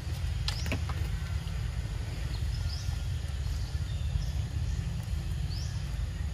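Outdoor forest ambience: a steady low rumble with short, high rising chirps every second or two, and a couple of sharp clicks about half a second in.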